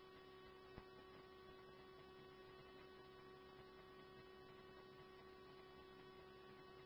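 Near silence: a faint steady electrical hum on the idle scanner channel, with one tiny click about a second in.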